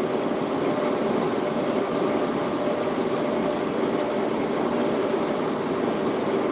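Steady engine and road noise inside a truck's cab cruising at highway speed, with a faint steady hum.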